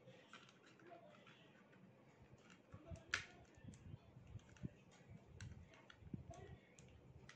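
Faint, scattered clicks and soft knocks of plastic toy-drone parts being handled as the stand is fitted onto the drone's body, with one sharper click about three seconds in.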